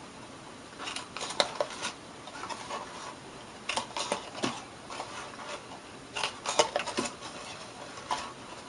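Handheld Crop-A-Dial hole punch clicking as it punches holes through cardstock. Small groups of sharp clicks come a few seconds apart as it moves from tab to tab, with paper handled between them.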